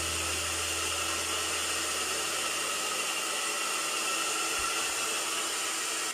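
AOKAI handheld hair dryer running steadily: a continuous rush of blown air with a faint motor whine.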